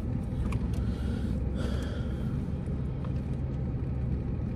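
Steady low rumble of an idling car, with a brief soft rustle about a second and a half in.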